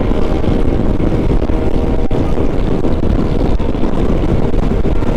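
Yamaha XMAX 300 scooter's single-cylinder engine running steadily while riding at road speed, under heavy wind rumble on the microphone.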